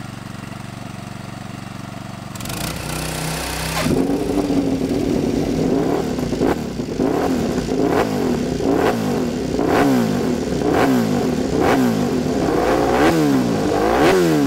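Honda RC211V's V5 racing engine being blipped on the throttle. After a steady hum, the engine comes in about four seconds in, and its revs then rise and fall in short blips about once a second, growing sharper towards the end.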